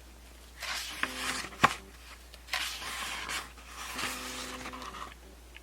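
Three rustling swishes of handling noise, like a paperback's pages being flipped or a book being moved about, with a sharp click about one and a half seconds in.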